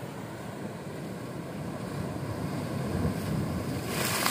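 Sea waves surging against shoreline rocks and building up, then a wave breaking over the rocks and throwing up a hissing burst of spray near the end.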